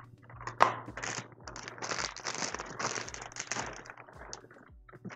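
Clear plastic packaging wrapped around a gaming chair seat crinkling and rustling as it is handled, with a sharp click a little over half a second in.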